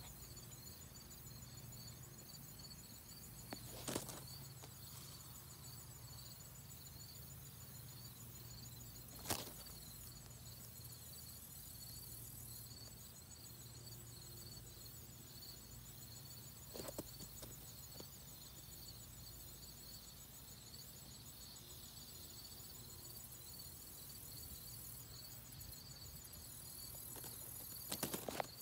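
Faint summer field ambience: insects trilling steadily in two high, finely pulsing bands over a low steady hum. Four short sharp clicks are spread through it, the last near the end.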